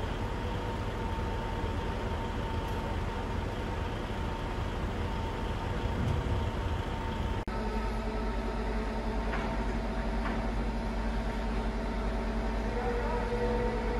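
Mobile crane's diesel engine running steadily, a low hum with a faint steady whine. About halfway through it changes abruptly to a similar steady engine drone.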